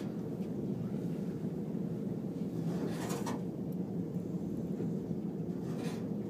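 Steady low rumble inside a glass-walled exterior elevator cab as it rides up the tower, with a couple of faint brief rustles.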